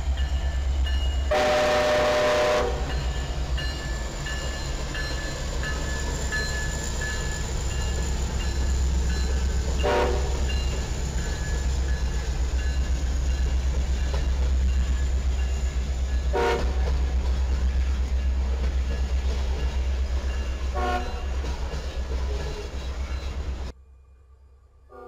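Diesel locomotives rumbling steadily, with one horn blast about a second in and three short horn toots spread over the following seconds. The sound cuts off abruptly near the end.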